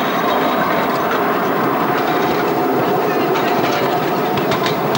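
Miniature park railway train running along its narrow-gauge track, heard from aboard a carriage: a steady rumble of wheels on rails, with a few sharp clicks near the end.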